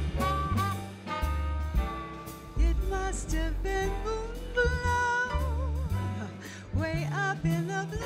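Small jazz band playing a swing tune live: piano, bass and drums, with a melody line held and shaken with vibrato over a bass line that moves from note to note.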